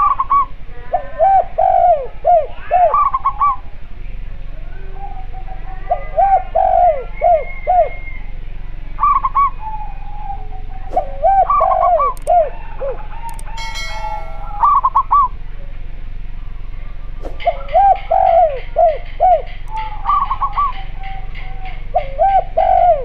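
Spotted dove and collared dove cooing in repeated phrases of four or five notes, a lower-pitched and a higher-pitched call answering each other, over a steady low hum. A brief high rattle sounds a little past halfway.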